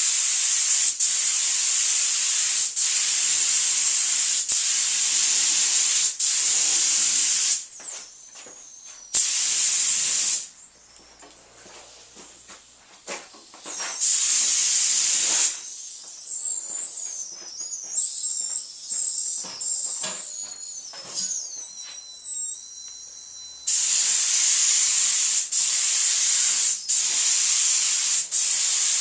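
Compressed-air paint spray gun hissing in long passes as a final coat goes on, the trigger let off several times. The hiss breaks briefly about eight seconds in, again from about ten to fourteen seconds, and for a longer stretch from about sixteen to twenty-four seconds. During that last break a wavering high whistle is heard.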